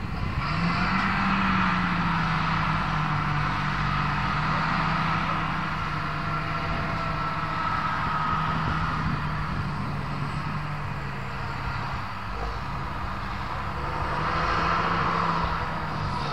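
John Deere tractor diesel engine working under load while plowing. The revs climb briefly about half a second in, then settle and hold steady.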